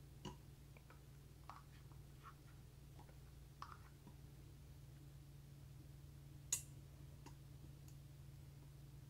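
Faint, scattered light clicks and taps of a spoon scooping solid coconut oil into a stainless steel Instant Pot insert, with one sharper click about six and a half seconds in, over a low steady hum.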